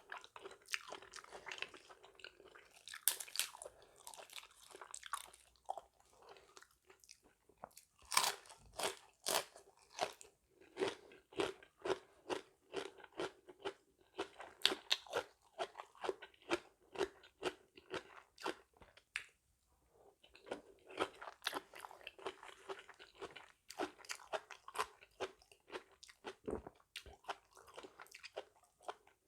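Close-miked chewing and biting of crunchy food, with rapid, irregular crunches and wet mouth clicks, briefly pausing about two-thirds of the way through.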